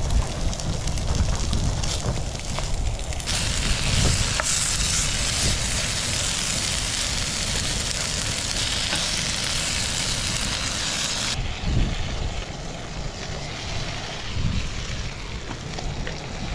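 Salmon fillets, cherry tomatoes and broccoli sizzling in a frying pan on a gas camping stove, over a steady low rumble. The sizzle is much louder from about three seconds in until about eleven seconds in.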